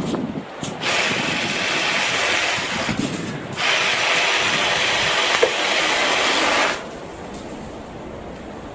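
BLACK+DECKER 18V cordless saw running in two bursts, about two and a half and three seconds long, switched on and off abruptly and stopping shortly before seven seconds in.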